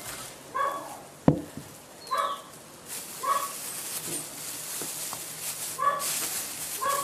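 A dog barking in short single barks, about five of them spaced a second or more apart. A sharp knock about a second in is the loudest sound, with a plastic bag rustling as it is handled.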